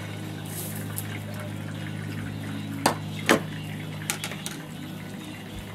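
Hot oil sizzling and bubbling steadily as battered green tomato slices deep-fry in a pan on a gas grill. Two sharp clicks a little after halfway, then a few lighter taps, from handling the plate and utensils.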